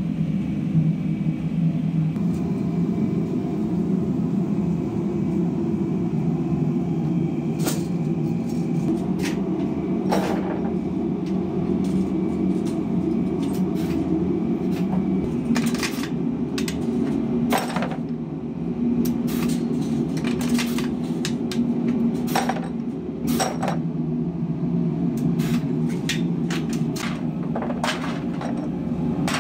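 Steady machine hum in a workshop, with scattered sharp metallic clinks and knocks from about seven seconds in, more frequent in the second half, as metal motorcycle brake shoes are handled and knocked against each other.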